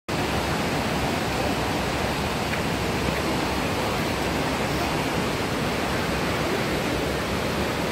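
Steady rushing of fast-flowing river water, an even hiss that does not change.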